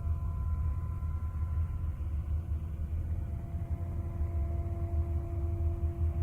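Deep, steady rumbling drone with a few faint held tones above it, one of NASA's 'sounds of the planets': spacecraft recordings of space turned into audio.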